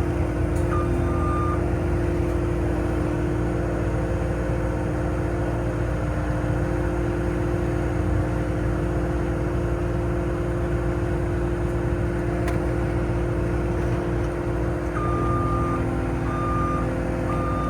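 Diesel engine running steadily. A backup alarm gives one beep about a second in, then beeps evenly, about once a second, over the last few seconds.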